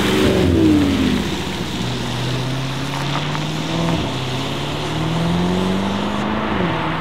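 Mercedes-AMG SL63 4Matic+ with its 4.0-litre twin-turbo V8 accelerating hard. The engine note falls over the first second, then rises steadily and drops suddenly at an upshift about four seconds in, then climbs again before a second upshift near the end.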